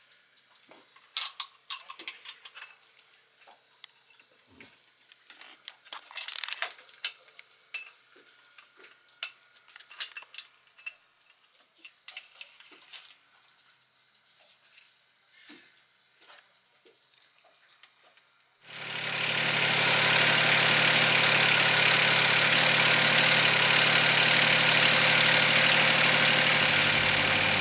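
Scattered small clicks and metal knocks as the engine's fuel filter is handled and fitted. About 19 seconds in, the sailboat's small inboard diesel engine comes in suddenly and runs steadily, running after its fuel system has been cleaned of diesel bug and fitted with a new filter.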